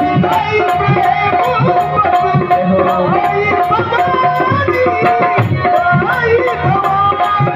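Instrumental interlude of a Hindi devotional bhajan: tabla keeping a steady rhythm under a melodic instrumental line, with a light high tick about three times a second.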